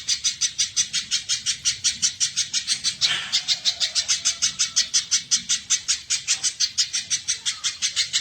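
Spiderhunter calling a fast, unbroken series of short, high chirps at about six or seven a second. A brief rasping burst comes about three seconds in.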